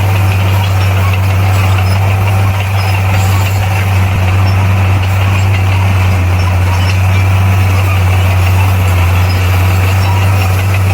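Bulldozer's diesel engine running at a steady speed, a constant low drone.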